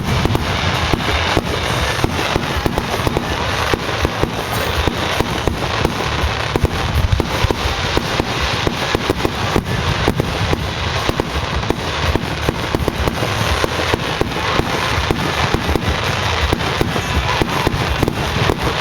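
Fireworks display going off in a dense, continuous barrage, many bangs a second with no pause.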